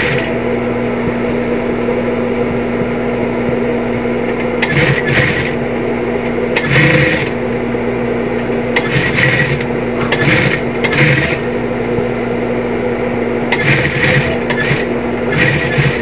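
Sewing machine stitching in short runs, about six or seven bursts of a second or less, over a steady motor hum, as binding is sewn onto the edge of a nylon bag.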